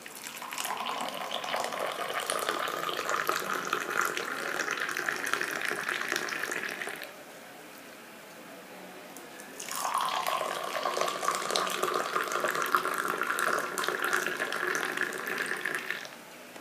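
Moroccan tea poured in a thin stream from a silver teapot into crystal tea glasses, splashing and frothing in the glass: two pours of several seconds each, with a pause of about two seconds between them.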